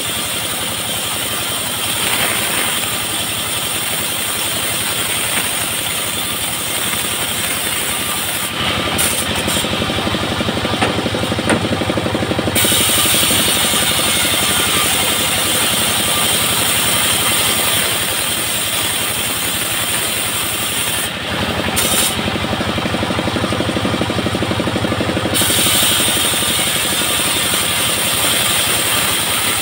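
Engine-driven bandsaw sawmill running steadily while its blade saws planks off a coconut palm log. The high hiss drops away twice for a few seconds.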